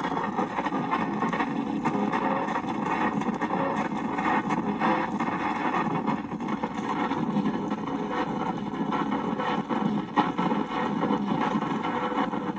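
Fisher-Price 825 toy record player playing a 7-inch single through its small built-in speaker, lo-fi and continuous, starting just after the needle is set down.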